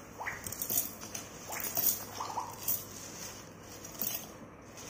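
Dry-roasted lentils, sesame seeds and dried red chillies being poured from a steel plate into a stainless-steel mixer-grinder jar, falling onto the steel in scattered light rattles, with a plastic spatula scraping them off the plate.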